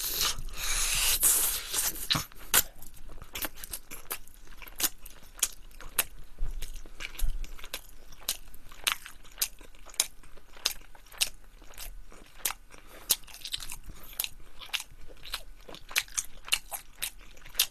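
Close-up chewing and biting of a glazed sotteok skewer of rice cake and sausage, with many short, sharp, irregular mouth clicks and a noisier bite about a second in.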